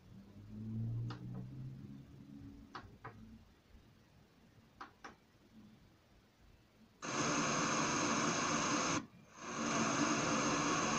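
A few faint clicks of buttons pressed on a tower speaker system. About seven seconds in, a steady loud hiss of static comes on from the speaker, cuts out for a moment and comes back.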